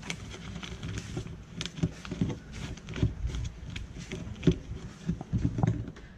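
Footsteps climbing stairs: an uneven series of steps and knocks, about one or two a second, over a low rumble.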